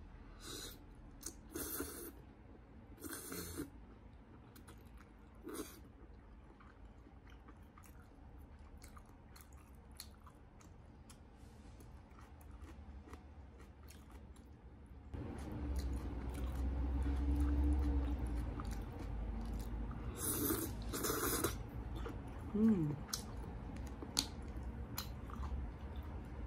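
Close-up eating sounds: a person chewing cup udon noodles, with several short noisy bursts as the noodles are slurped. A low rumble builds from a little past halfway.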